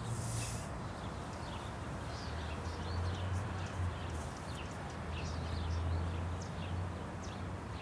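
Outdoor ambience: small birds chirping faintly and repeatedly over a low steady hum.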